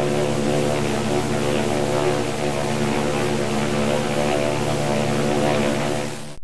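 Steady engine drone of a ship running at an even pitch, as a sound effect for the liner's passage, cutting off suddenly at the end.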